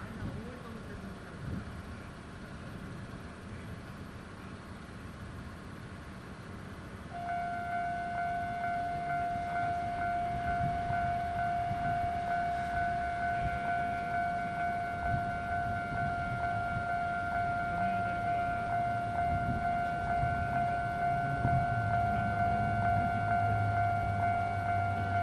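Railway level-crossing warning signal starts ringing about seven seconds in, a steady electronic tone that keeps on. Near the end the low rumble of an approaching diesel railcar builds under it.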